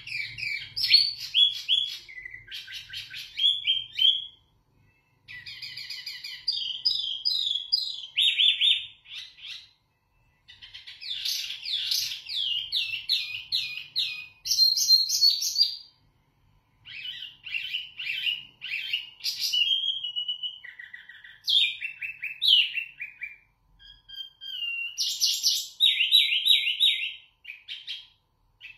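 Caged wambi mini songbird singing loud, clear phrases of rapid repeated notes and trills. The song breaks off briefly every few seconds and then starts again.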